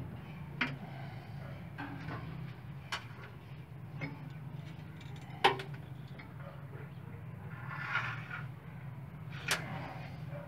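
Several sharp clicks and knocks of hands working on a 200cc engine's cables and parts, the loudest about halfway through, over a steady low hum.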